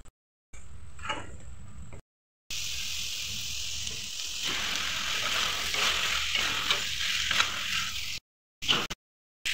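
Oil sizzling in a kadai as onion-tomato masala fries, getting louder about halfway through as chopped green capsicum is tipped into the hot pan, with a spatula scraping and stirring. The sound is broken by several short silences.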